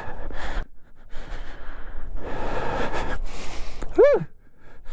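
A man breathing hard and panting, out of breath from scrambling up a steep rocky slope on foot, with a short voiced grunt or gasp about four seconds in.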